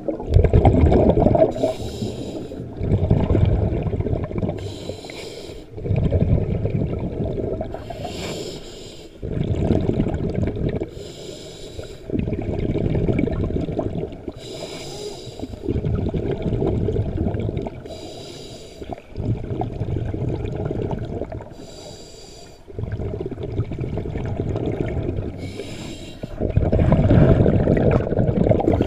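Scuba diver breathing through a regulator underwater: a short hiss on each inhale, then a longer rumbling burst of exhaled bubbles, repeating about every three to four seconds.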